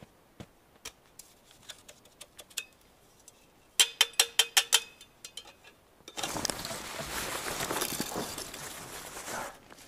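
A quick run of about eight sharp metallic clinks with a ringing tone near the middle, from thin sheet-metal stovepipe pieces knocking together as they are handled. From about six seconds in, steady rustling and crunching handling noise.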